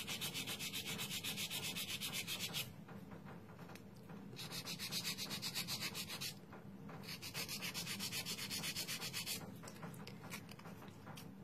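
Hand nail file rubbing back and forth over a cured acrylgel (polygel) nail, shaping its side walls straight. Quick strokes come several a second, in three runs with short pauses between them, and are fainter near the end.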